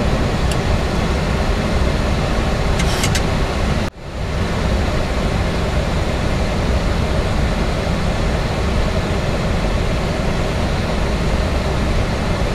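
Steady rushing noise inside a Boeing 737-800 cockpit on approach, made by airflow over the nose and the running engines. A few faint high clicks come in the first three seconds. The noise cuts out sharply for an instant about four seconds in, then returns.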